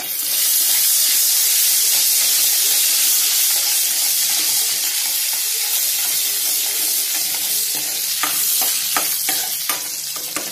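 Ginger-garlic paste sizzling loudly in hot oil in a kadai as it is stirred with a spatula. From about eight seconds in, the spatula knocks against the pan several times over the sizzle.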